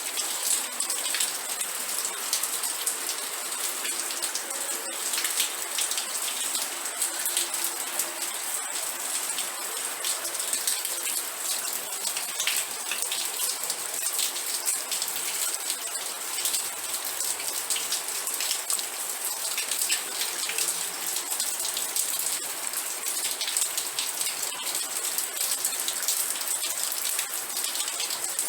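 Steady rain with no let-up, the hiss strongest and brightest in the treble, full of separate close drop hits.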